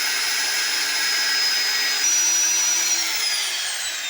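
High-speed electric power tool cutting and shaping steel circular-saw-blade stock: a steady high whine over a hiss. About three seconds in, the pitch falls and the sound fades as the motor winds down.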